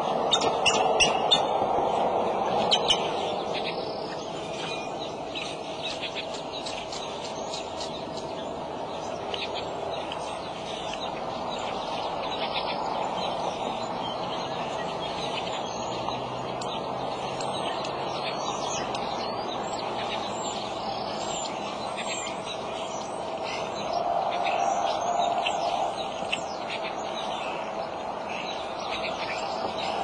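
Small wild birds chirping, with many short high calls scattered throughout, over a steady background hum.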